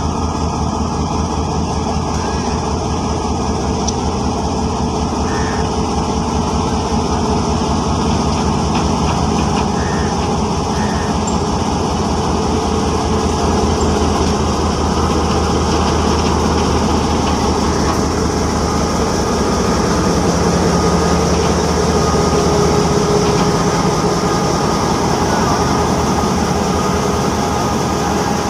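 GMCU-15 diesel-electric locomotive's engine running with a steady low throb as the locomotive rolls slowly past at the head of a freight train. It grows a little louder as the locomotive draws alongside, about two-thirds of the way through.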